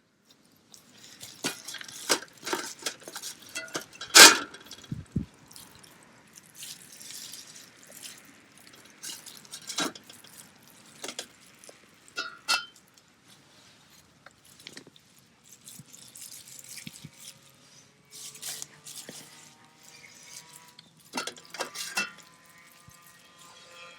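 Cookware and utensils clinking and knocking at irregular intervals, with one loud knock about four seconds in and faint steady ringing tones near the end.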